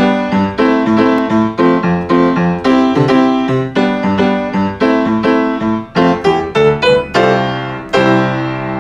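Piano music: a brisk run of struck notes and chords, each note dying away. The playing quickens briefly, then a last chord rings out and fades near the end.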